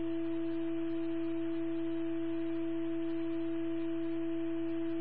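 A single steady electronic tone held at one pitch without change, with a fainter overtone above it and a low hum beneath.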